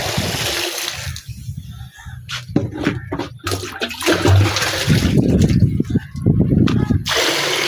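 Milk poured from a jug into a wide metal karahi, splashing onto the pan, for about the first second and again near the end. In between, the jug knocks and scoops through milk in a plastic drum.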